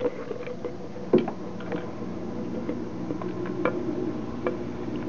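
Vinegar fizzing on the alkaline leakage of an old nickel-cadmium battery pack: scattered small pops and crackles of bursting bubbles as the acid neutralises the crust, with a louder knock about a second in.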